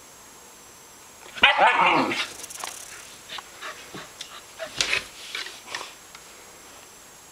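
A husky vocalising with the odd noises huskies make: one loud, drawn-out call with a bending pitch about a second and a half in, then a string of shorter, quieter sounds for the next few seconds.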